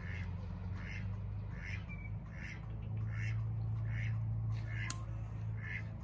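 Short squeaks or calls repeated evenly, about every three-quarters of a second, over a steady low hum; one sharp click near the end.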